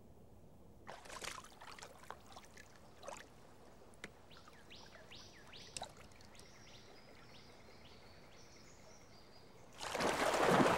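Light watery splashes and drips, then a run of short, high, falling calls. Near the end comes a loud splash as an Amazon arowana drops back into the water after its leap.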